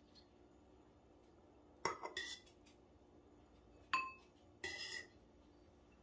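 Metal knife and fork clinking and scraping against a plate and bowl while cooked salmon is lifted off its skin: a clink about two seconds in, a sharper ringing clink about four seconds in, then a short scrape.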